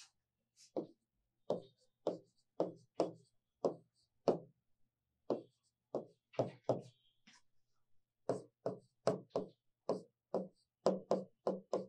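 Chalk tapping against a blackboard while writing: a steady run of short, sharp knocks, unevenly spaced at about two a second.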